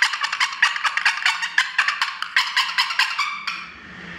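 Sound effect of a turkey gobbling and clucking: a fast rattling run of clicks, about eight a second, that stops shortly before the end.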